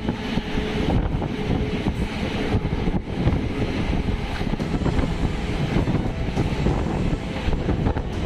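Passenger train running along the track, a steady rumble of wheels on rails, with wind buffeting the microphone.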